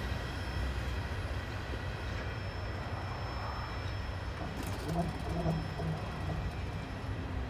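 Freight train's tank cars rolling along the track, a steady low rumble of steel wheels on rails.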